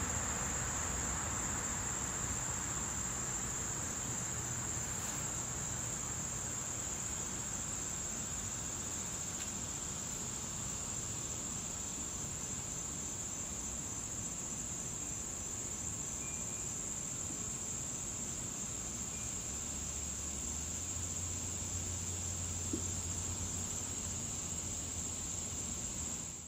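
A steady high-pitched insect trill with a faint low hum beneath it.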